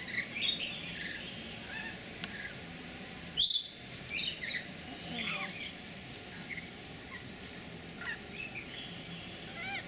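Rainbow lorikeets chattering with many short, shrill chirps and squawks, with one loud screech about three and a half seconds in.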